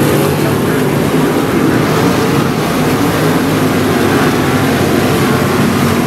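305 sprint cars racing on a dirt oval, their V8 engines running hard as cars pass close by. Several engines overlap, their pitches rising and falling.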